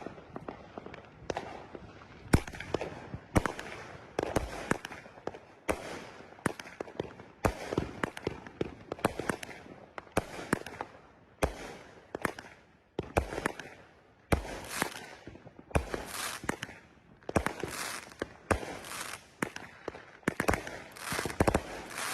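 Winda Strongman 16-shot 200-gram firework cake firing: a steady string of sharp launch thumps and loud bursts about a second apart, with crackling between the shots.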